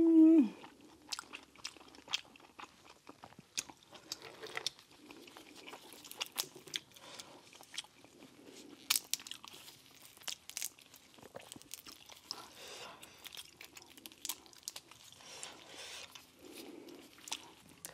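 Chewing and wet mouth sounds of seafood being eaten close to a clip-on microphone, with many sharp clicks and crackles as crawfish shells are cracked and peeled by gloved hands. A short hummed "mmm" comes right at the start.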